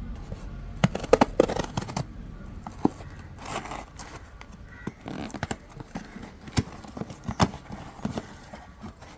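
A courier parcel being opened by hand: packaging tearing and rustling, with scattered sharp clicks and scrapes.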